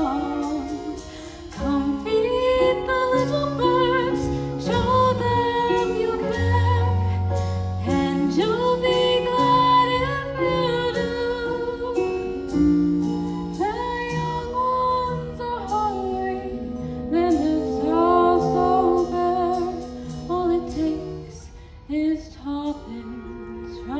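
Slow song with a woman singing long held notes over instrumental accompaniment.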